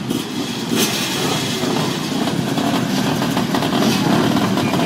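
Many off-road motorcycle engines running together at idle, a steady dense mass of engine sound.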